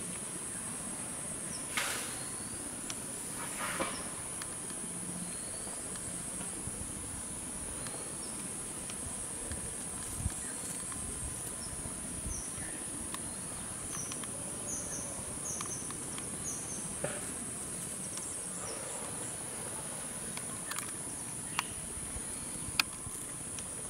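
Steady high-pitched insect drone in tropical scrub forest, with a run of short high chirps in the middle and a few sharp clicks, the loudest near the end.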